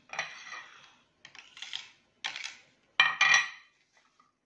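White ceramic plates of garlic cloves being slid and set down on a granite countertop: four short scraping, clattering strokes, the loudest about three seconds in.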